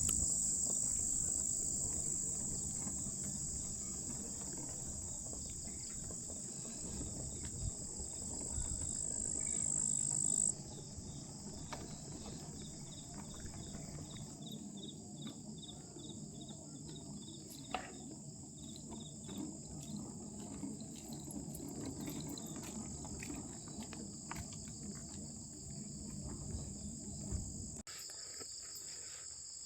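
Evening insect chorus: a steady, high-pitched chirring of crickets or similar insects, louder for the first ten seconds or so and then dropping abruptly. A low rumble underneath stops suddenly near the end.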